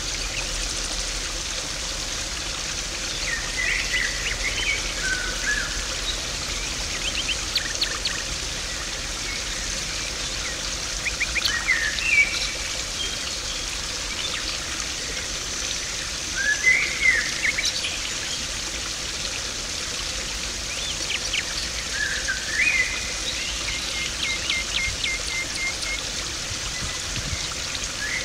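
Garden pond water trickling and splashing steadily, with songbirds chirping in short bursts every few seconds.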